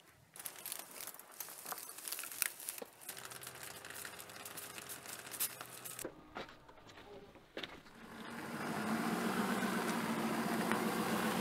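Crackling, crunching clicks and a few knocks for the first half. Then, about eight seconds in, a Ford pickup truck's engine comes up and runs steadily as the truck drives off with its camper.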